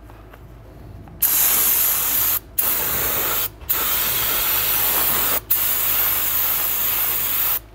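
Aerosol brake cleaner sprayed onto a rear wheel hub in four hissing bursts. The bursts start about a second in and are split by brief pauses, and the last one is the longest at about two seconds.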